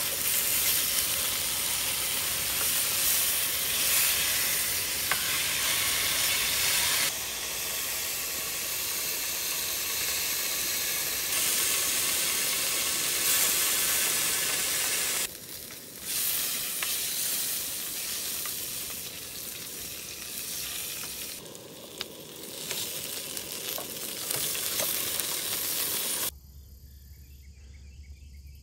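Hot dogs sizzling as they cook, a steady frying hiss that jumps in level several times. Near the end the sizzling cuts off, leaving a quiet low hum and faint insect chirping.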